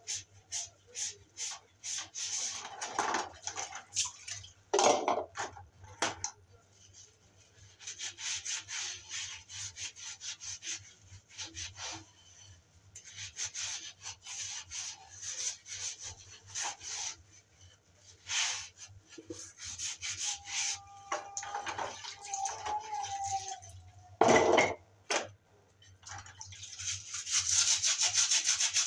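Dishes washed by hand at a sink: a sponge scrubs plastic and metal utensils in many short, scratchy rubbing strokes. Crockery knocks twice, once about five seconds in and once near the end. The scrubbing grows denser and louder in the last couple of seconds.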